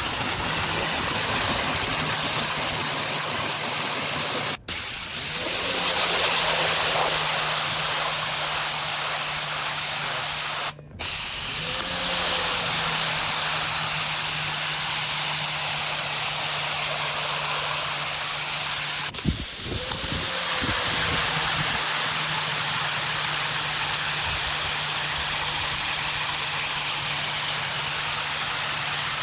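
Giraffe Tools wall-mounted electric pressure washer spraying: a steady hiss of the water jet over the motor's hum. The spray breaks off briefly three times, each time picking up again with a short rise in pitch.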